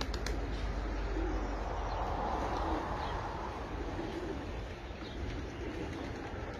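Domestic pigeons cooing: short low coos repeating every second or so over a steady low rumble.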